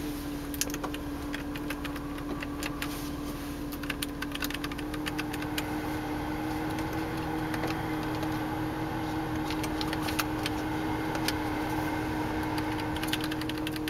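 Repeated plastic clicks of climate-control buttons being pressed on a 2007 Porsche 911 Carrera's dashboard, over a steady hum from the idling engine. The cabin fan grows slightly louder about five seconds in.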